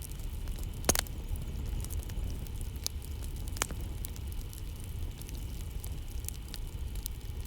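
Campfire crackling: scattered sharp pops and snaps over a low steady rumble, the loudest pop about a second in.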